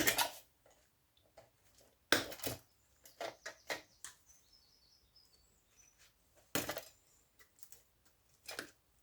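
Scattered clinks and knocks of a power supply's metal parts being handled and worked on by hand, in separate short bursts with pauses between.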